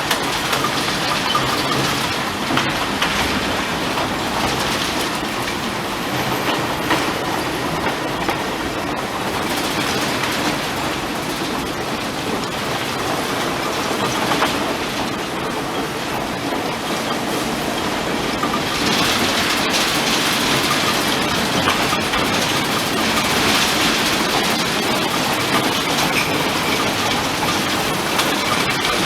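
Unmanned limestone ore train of a mining railway running along its track, the ore cars' wheels rumbling and clicking over the rail joints. The sound grows louder about two-thirds of the way in.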